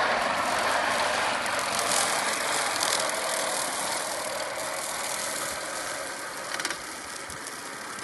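Horse-drawn mower clattering steadily as it cuts grass, the mechanical rattle of its gearing and blades growing quieter as it moves away.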